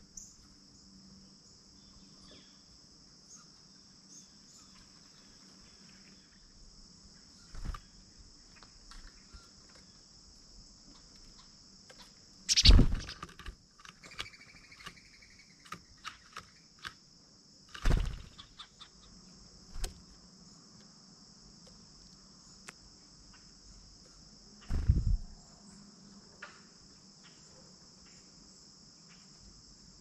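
A steady high insect chorus of crickets or katydids, with a few sharp loud knocks and rustles from birds landing on and leaving a mesh tray feeder and pecking at the seed. The loudest knocks come near the middle, about five seconds later, and again a few seconds after that.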